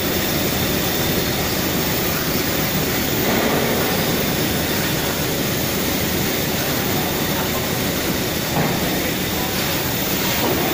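A steady, even mechanical roar of machinery, with no rhythm or change in pitch.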